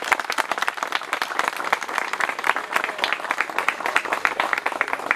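A small group applauding: many hands clapping at once in a dense, steady patter.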